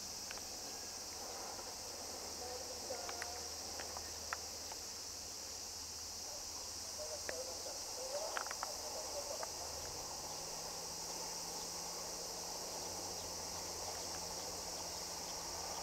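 Steady high-pitched insect chorus, crickets, with a few faint short chirps and clicks around the middle.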